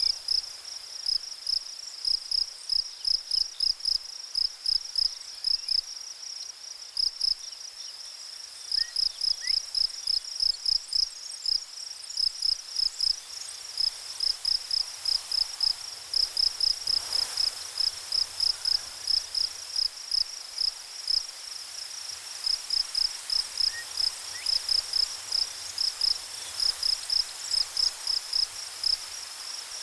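Insect chirping in a steady run of short, high-pitched pulses, about four or five a second, broken by a few brief pauses.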